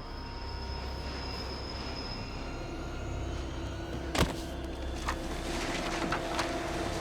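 Subway train rumbling on the rails with a steady low drone and held metallic tones, growing slightly louder. A single sharp impact cuts through about four seconds in, followed by a few lighter knocks.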